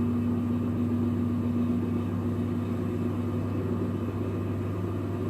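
A steady low mechanical hum that holds an even pitch and level throughout.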